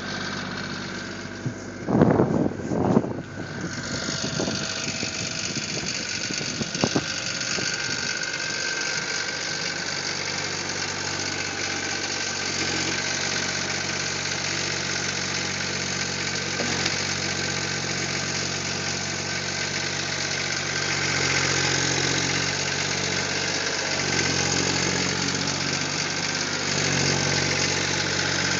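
Case skid steer's diesel engine running steadily, with a cluster of loud clanks about two to three seconds in and a single short knock around seven seconds in.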